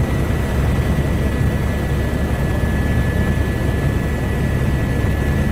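Helicopter engine and rotors running: a steady, loud low rumble with a steady high whine over it.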